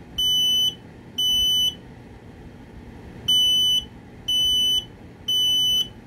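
Kidde Worry-Free P3010L photoelectric smoke alarm sounding its self-test in the temporal-three alarm pattern: two high-pitched beeps ending one group, a pause, then a group of three beeps, each about half a second long. Its horn is covered with tape to keep it from being too loud.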